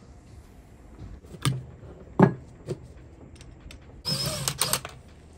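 Wheelchair motor being handled while its brake end cap is worked off: a few sharp clicks and knocks of metal parts, then a short scraping rasp about four seconds in.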